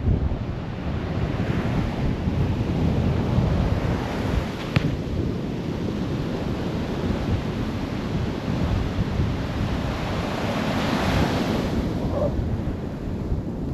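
Ocean surf breaking and washing up the beach, with wind buffeting the microphone. One wash swells louder late on.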